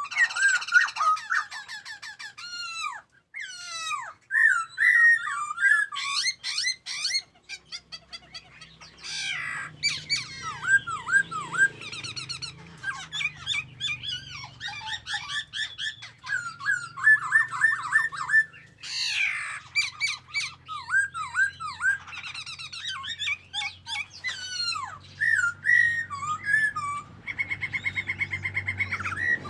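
A songbird singing a long, varied song of quick whistled notes and chirps that glide up and down, with a fast trill near the end.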